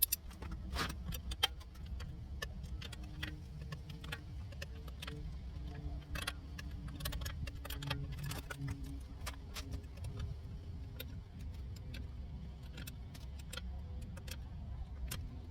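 Nissan Sentra engine idling with a low, steady rumble, with scattered sharp clicks and light knocks over it.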